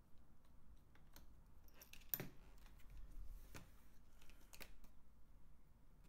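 Faint, scattered clicks and ticks of a small Phillips screwdriver and tiny laptop bottom-cover screws being backed out and handled, the sharpest click about two seconds in.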